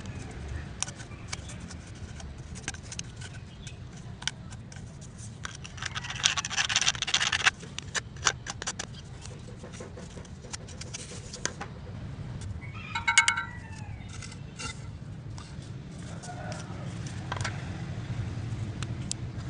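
A PVC pipe and its cut-out piece being handled: scattered plastic clicks and taps, with a harsh scraping for about a second and a half around six seconds in. A short high-pitched squeak comes around thirteen seconds, over a low background rumble.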